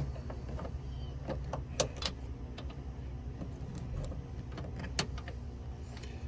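Scattered, irregular metallic clicks and clinks of hand tools and a battery hold-down bracket being fitted, over a steady low hum.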